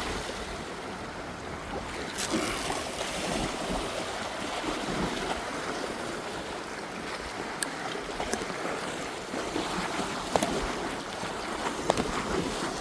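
Surf washing on the shore, with wind buffeting the microphone and a few faint sharp clicks.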